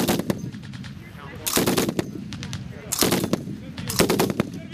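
DShK 12.7 mm heavy machine gun firing short bursts: the end of one burst at the start, then three more, each about half a second long, a second or so apart.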